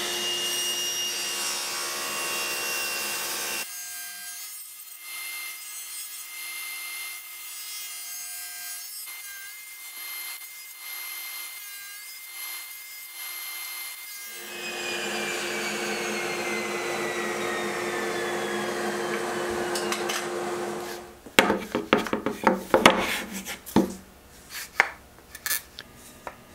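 Table saw running and cutting finger joints in wood with a box joint jig, with a quieter stretch of short repeated strokes in the middle. About two-thirds of the way in, the whine falls steadily as the blade coasts down. Then a string of sharp wooden knocks and clatters follows as the cut pieces are handled and fitted together.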